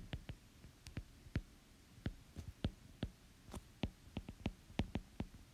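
Stylus tapping and clicking on a tablet's glass screen while handwriting: a string of light, irregular taps, two to four a second.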